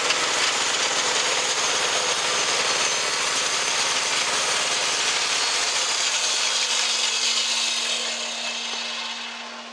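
Pusher band sawmill's blade sawing through a log, a steady loud hiss over a low running hum. About five and a half seconds in the low hum drops out, and the sawing noise then dies away near the end.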